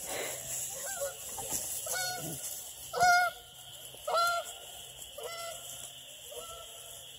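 A hound puppy barking over and over, short pitched yelping barks about once a second, the two loudest near the middle and the later ones fainter.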